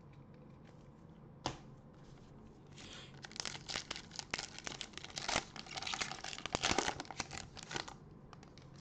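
A Panini Prizm basketball card pack's foil wrapper being torn open and crinkled by gloved hands, from about three seconds in to nearly the end. A single sharp click comes about a second and a half in.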